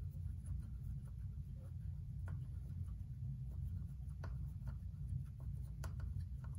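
Faint scratchy clicks of a 7/64 Allen key turning in the set screw inside the shift detent hole of a Borg Warner 1356 transfer case, loosening the screw that holds the shift shaft, over a steady low hum.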